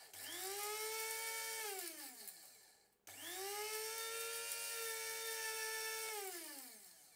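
Heinner Optim 150 electric blade grinder grinding dried stevia leaves in two pulses: the motor whines up to speed, runs steadily for about one and a half seconds and spins down with falling pitch, then after a short gap runs again for about three seconds and winds down near the end.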